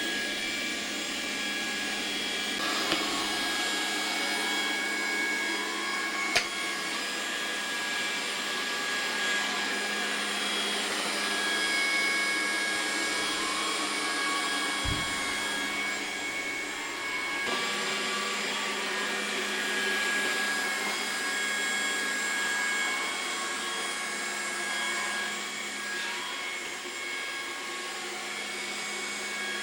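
Trifo Ollie robot vacuum cleaning, its suction fan and brushes running with a steady whine. There are short sharp clicks at about 3 and 6 seconds in, and a dull thud about halfway through.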